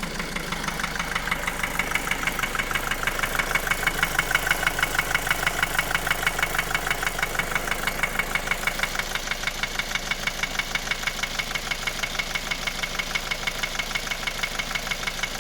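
Opel Astra J 1.7 CDTI four-cylinder diesel engine idling with a steady, rhythmic knock a few times a second. The knock began after the oil pump pickup strainer in the sump clogged, and it persists although the bearing shells checked out fine and the injectors were replaced.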